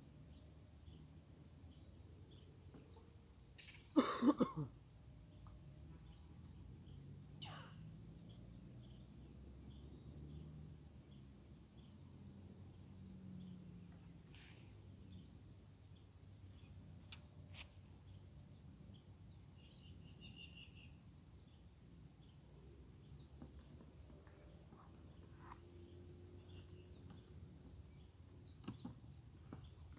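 Insects trilling steadily in a high, rapid, even pulse. A short louder sound comes about four seconds in, with a few faint clicks scattered through.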